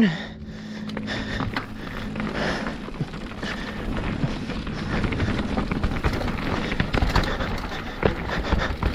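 Mountain bike rolling down a rough, technical dirt trail: tyres crunching over dirt and rocks, with a steady run of rattles and knocks from the chain and frame, and wind rushing over the microphone.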